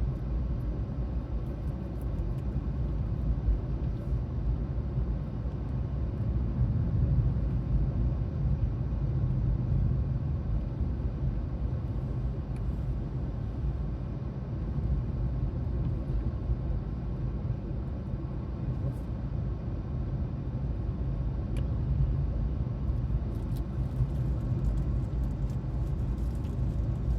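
Steady low rumble of a car heard from inside the cabin, with no breaks or distinct events.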